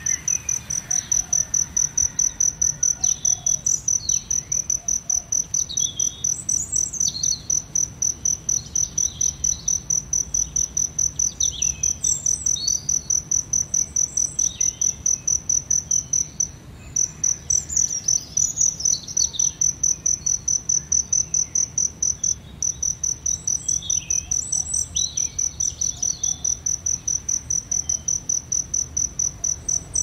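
Cricket chirping: a loud, high, steady trill in quick, regular pulses, broken by two short pauses past the middle. Small birds chirp briefly now and then.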